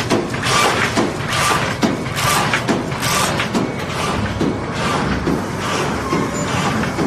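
XY-BMY semi-automatic flat die-cutting and creasing machine running, with a regular noisy clatter about twice a second over a steady mechanical hum.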